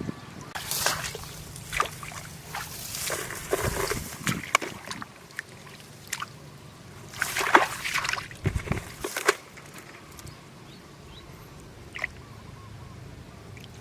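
Shallow muddy water sloshing and splashing in three bouts, the busiest near the middle, then settling, over a faint steady low hum.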